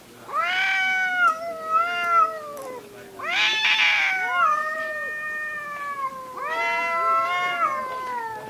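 Domestic cats yowling at each other in a stand-off: three long, wavering wails that bend in pitch and slowly sag, the second, about three seconds in, starting harsh and raspy. This drawn-out caterwauling is an aggressive warning between two cats squaring up.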